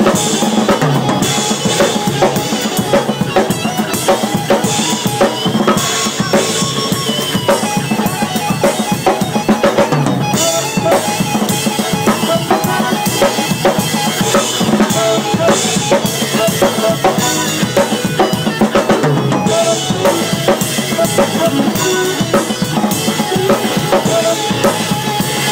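Live band playing through a soundcheck, with the drum kit loudest: bass drum and snare hits keep a steady beat under other instruments.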